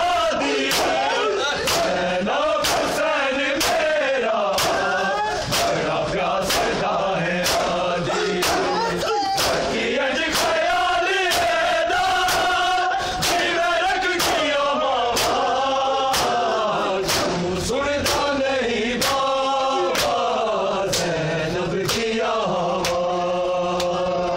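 A crowd of men chanting a mourning lament (nauha) together while beating their chests in unison (matam). The hand slaps land in an even beat about one and a half times a second under the chant.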